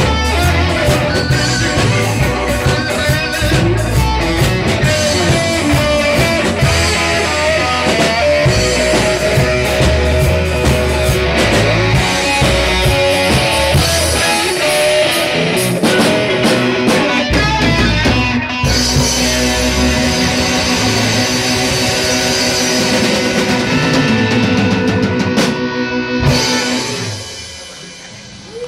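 Live rock band playing, with electric guitar and drum kit, loud and steady; the music dies down near the end.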